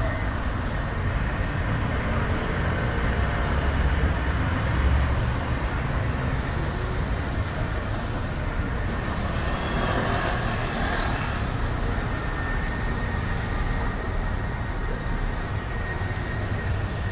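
Steady road traffic noise from a busy street, with one vehicle passing more loudly about ten seconds in.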